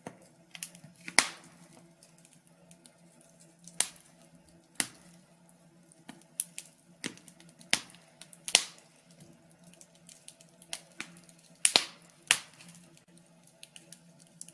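Wood fire crackling in a fireplace: irregular sharp pops and snaps about a second apart, over a faint steady low hum.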